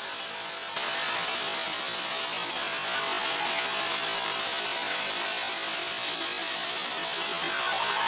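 Geepas drum vacuum cleaner running with a steady whooshing motor noise while its floor brush is pushed across a hard floor; it gets a little louder about a second in.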